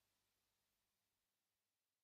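Near silence: only a very faint hiss, slowly fading.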